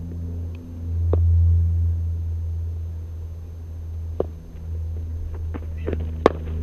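Sharp cracks of a cricket ball striking a bat in the practice nets: one about a second in, one about four seconds in, and the loudest near the end. A steady low rumble runs underneath.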